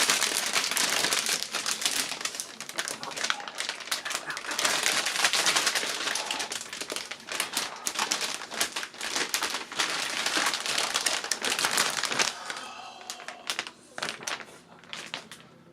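Resealable anti-static plastic bag crinkling and rustling as it is handled and opened, dying down near the end.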